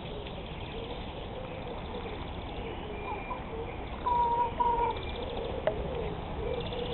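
Hens calling softly: low, wavering murmuring calls throughout, with two short, louder, higher held notes about four seconds in.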